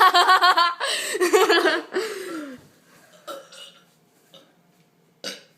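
A long, loud, rough human burp that trails off in a falling tone about two seconds in.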